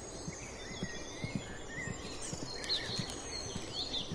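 Birds chirping over a steady low background noise: short high chirps come and go, more of them in the second half.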